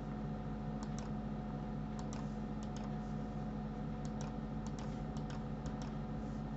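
Computer keys clicking now and then, about a dozen short clicks mostly in quick pairs, as the software is worked by keyboard, over a steady low hum.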